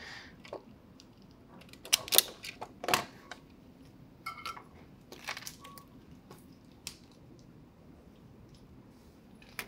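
A few sparse, sharp clicks and snips of small hand tools as a thin hookup wire is cut to length.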